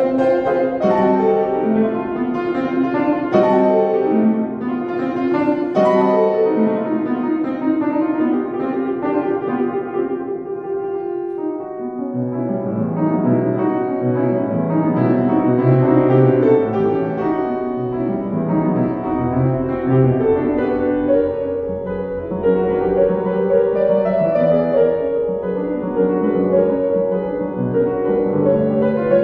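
Kawai upright piano played solo in a busy passage of many quick notes, moving down into a lower register with bass notes about twelve seconds in.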